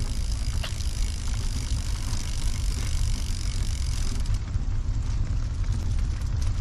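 Steady low rumble of a recumbent trike rolling along a paved path, with wind buffeting the microphone.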